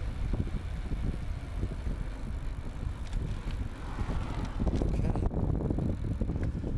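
Wind buffeting the microphone of a handlebar-mounted camera on a moving e-bike, an uneven low rumble mixed with tyre and road noise.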